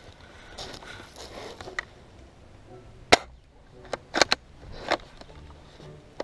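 Shots from a skirmish-game gun: one sharp crack about three seconds in, then a quick run of three cracks a second later and one more half a second after.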